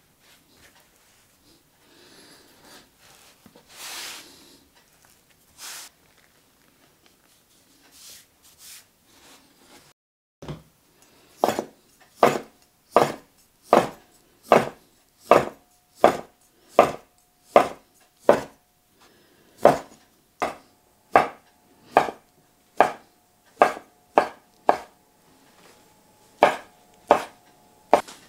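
Faint rubbing of dough being rolled up by hand on a floured wooden board. Then, from about ten seconds in, a large kitchen knife cuts the rolled chive-pancake dough into slices, giving a steady run of about two dozen sharp knocks of the blade on the wooden board, roughly three every two seconds.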